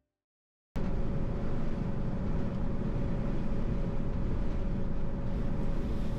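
Steady road and engine noise from a Class 2 rigid lorry driving at speed, heard from inside the cab, with a faint steady hum. It starts suddenly about a second in.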